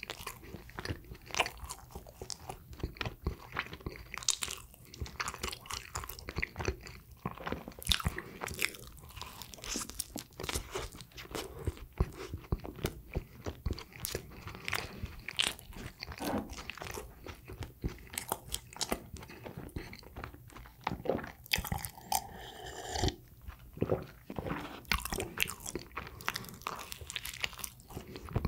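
Close-miked mouth sounds of someone biting and chewing sweet bread: many irregular wet smacks and clicks, with a brief, denser sound about three quarters of the way through.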